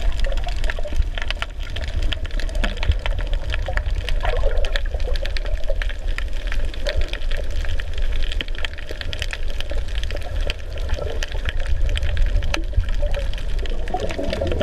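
Underwater water noise picked up by a camera submerged over a coral reef: a muffled, steady wash with a heavy low rumble and frequent small clicks and crackles.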